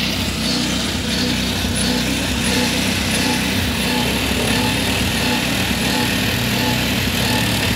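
A small engine running at a steady speed throughout.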